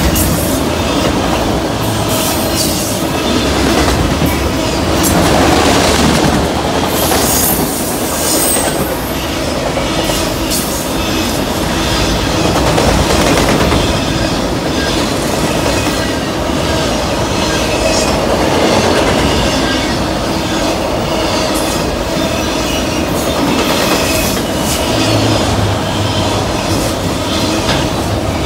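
Freight train of enclosed autorack cars rolling past at speed: a steady rumble and clatter of steel wheels on the rails, with the car bodies rattling.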